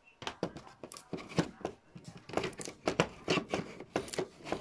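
Rummaging: a quick, irregular run of rustles and small clicks from things being handled close to the phone's microphone.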